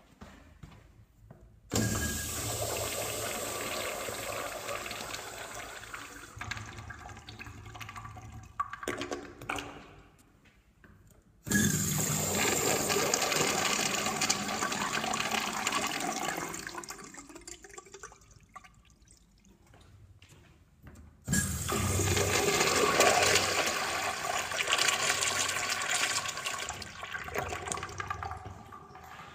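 Urinals flushing three times in turn. Each flush starts suddenly with a loud rush of water that tapers off over several seconds.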